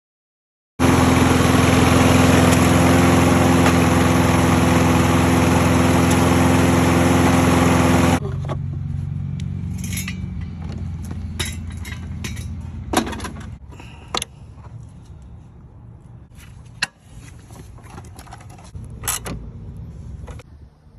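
Toro 22-inch self-propelled lawn mower engine running loud and steady. About eight seconds in it cuts off sharply, and a lower rumble fades away over the next several seconds with scattered clicks and knocks.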